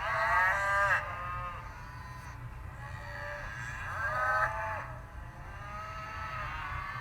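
Cattle mooing: a loud call lasting about a second at the start, another about four seconds in, then fainter calls near the end.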